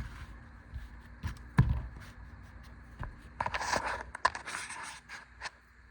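Small metal keychain multi-tools being handled: scattered clicks and knocks, then a couple of seconds of scraping and rustling about halfway through.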